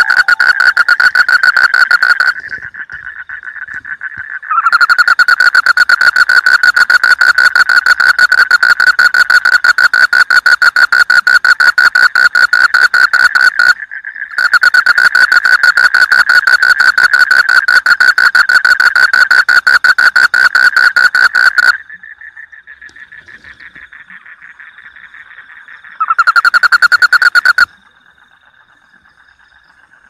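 Frog calling: a loud, rapid pulsed trill held in long bouts of several seconds, broken by short pauses in which a softer trill carries on.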